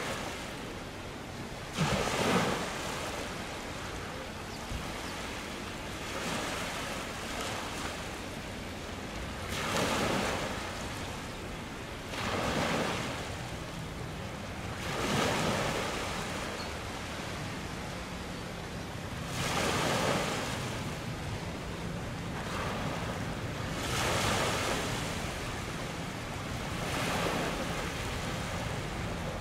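Sea waves washing and splashing in surges every few seconds, with wind on the microphone.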